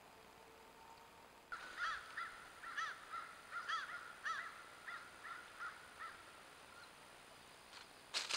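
Wood duck calling: a run of about a dozen short, squealing notes that rise and fall, two or three a second, lasting about five seconds. A few sharp clicks come near the end.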